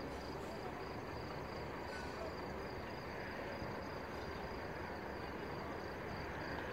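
Crickets chirping in a steady, evenly pulsing trill over a constant low hum of city noise.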